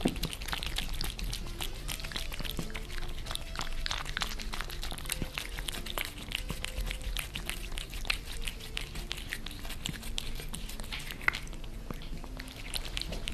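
Two cats licking and chewing a treat: a quick, irregular run of small wet clicks and smacks over a low steady hum.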